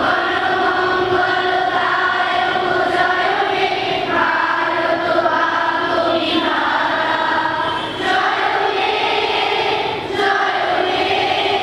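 A large group of schoolgirls singing a prayer song together as a choir. They hold long notes and move to a new phrase about every two seconds, with short breaks for breath.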